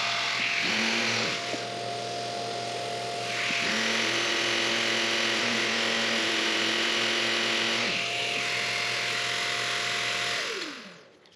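Wood lathe turning a cherry scoop while a small electric sander is pressed against the spinning bowl: a steady motor whine under a continuous sanding hiss. The sander's lower motor note comes in briefly about a second in and again from about three and a half to eight seconds in. Near the end the whine falls in pitch and dies away as the machine spins down.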